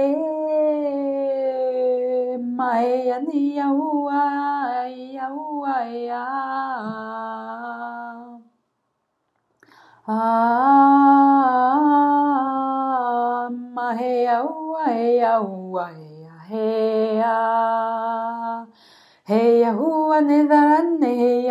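A woman's voice singing a wordless, improvised 'light language' chant, unaccompanied: long held notes joined by slides up and down in pitch. It breaks off for about a second and a half partway through, then goes on, with one slow falling glide and another short pause near the end.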